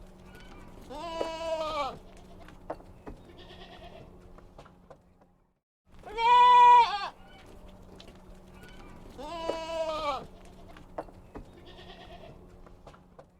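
Kid goats bleating: three clear wavering bleats, the loudest about six seconds in, with fainter calls between them. A faint steady hum runs underneath.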